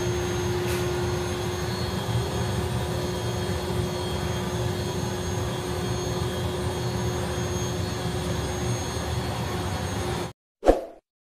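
Steady whir of a kitchen fan running, with a constant hum and a low rumble, beside a boiling pot of soup; it cuts off abruptly near the end, followed by a brief loud sound.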